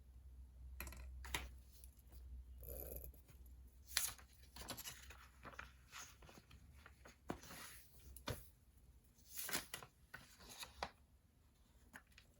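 Quiet desk sounds of paper and stationery being handled: irregular rustles and scratches with a few sharp clicks, over a low steady hum.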